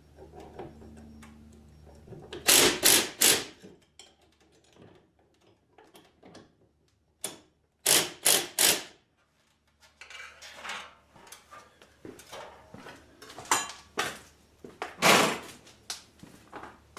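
DeWalt cordless drill fastening a bolt on a garage door opener's door arm, run in short trigger bursts: two quick runs of four loud rattling pulses, then a couple of single bursts near the end. A faint motor hum comes before the first run.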